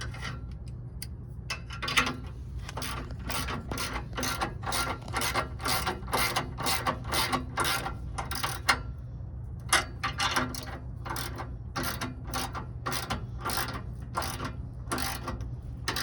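Ratchet wrench clicking in quick repeated strokes as an exhaust clamp nut is tightened, with a short pause about nine seconds in.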